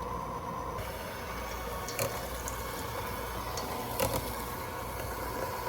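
Water running steadily from a kitchen tap, with two light knocks about two and four seconds in.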